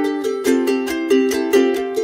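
Background music: a plucked-string tune, like a ukulele, with evenly picked notes about four to five a second.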